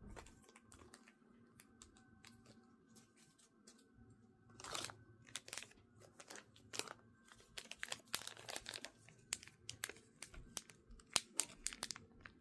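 Quiet crinkling and tearing of a Mini Brands capsule's plastic packaging being handled and opened: scattered rustles and clicks that get busier from about the middle on.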